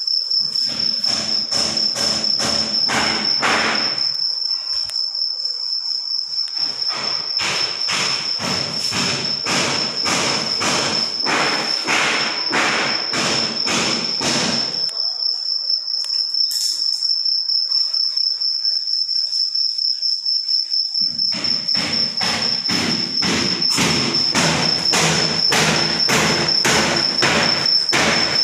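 A steady, shrill insect trill, like a cricket's, runs throughout. Over it come runs of sharp knocks about three a second, with two breaks of a few seconds, one about 4 s in and a longer one about 15 s in.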